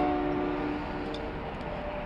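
Diesel locomotive air horn sounding a chord of several notes at once, a blast that ends less than a second in, followed by the steady noise of the approaching locomotives.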